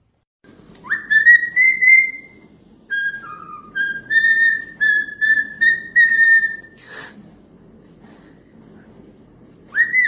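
A parrot whistling. It opens with a rising swoop into a held note, then gives a string of short, clear whistled notes at about the same pitch. There is a brief knock about seven seconds in, and one more rising-and-falling whistle at the end.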